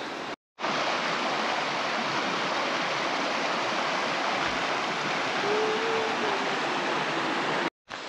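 Shallow rocky creek running over stones: a steady rush of water. It starts abruptly just after a brief silent break and cuts off abruptly near the end.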